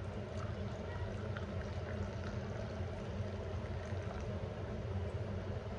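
A milky hot drink poured in a thin stream from a metal pot into a ceramic cup, a steady trickle over a low hum, with a few faint small ticks.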